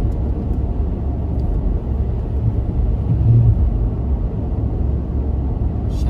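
A car driving, with a steady low road rumble and a brief low hum about three seconds in.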